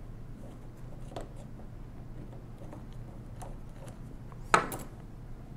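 Screwdriver working a screw out of the metal frame of a 1920s Monroe mechanical calculator: faint scrapes and ticks, with one sharp click about four and a half seconds in.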